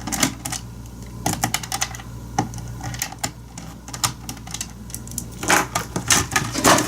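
Irregular sharp clicks and taps of a screwdriver, screw and hard plastic keyboard casing being handled during disassembly, busier near the start and again about five and a half seconds in.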